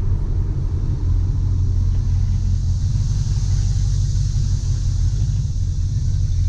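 Chevrolet Camaro 2SS's 6.2-litre V8 with a Borla cat-back exhaust, a steady low exhaust rumble heard inside the cabin as the car rolls slowly at light throttle, with no revving.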